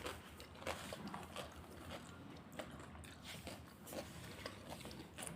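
Faint chewing of panipuri, with scattered small crunches of the crisp puri shells.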